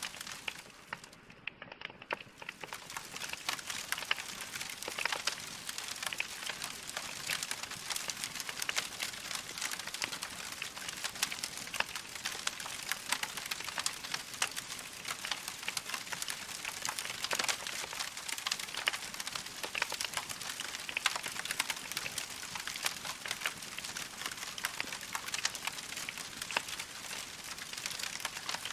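Wood fire crackling in a fireplace: a dense stream of small pops and snaps over a soft hiss. It briefly fades and thins out about a second in, then comes back.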